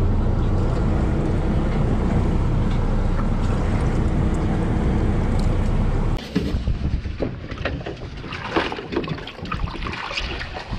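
Fishing boat running, a steady low rumble of engine and water along the hull. About six seconds in it drops away suddenly, giving way to scattered knocks and rattles as a landing net holding fish is handled over a plastic fish basket.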